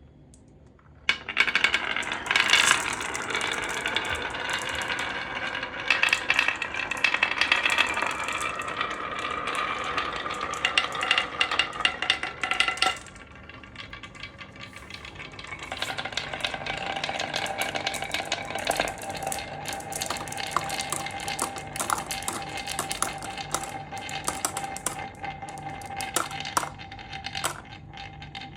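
Marbles rolling and clattering down a marble run, a dense stream of quick clicks and knocks that starts about a second in. The clatter thins out for a few seconds in the middle, and a steady ringing tone runs under it through the second half.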